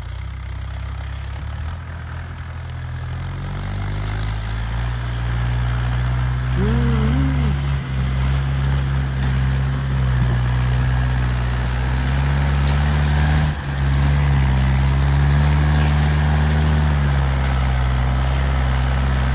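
Mahindra tractor's diesel engine running steadily, growing louder over the first few seconds. A short wavering tone sounds about seven seconds in.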